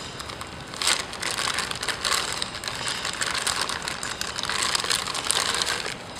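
Clear plastic bag crinkling and rustling as a lock-out hub is unwrapped from it by hand, starting about a second in.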